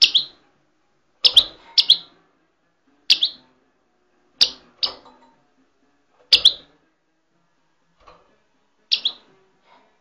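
A small caged bird giving loud, sharp single chirps, roughly one a second, several of them in quick pairs.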